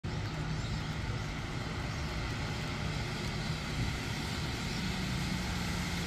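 Steady city street traffic: a low engine hum over an even hiss.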